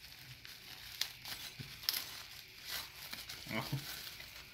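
Packaging crinkling and rustling in scattered short bursts as an item is handled and unwrapped.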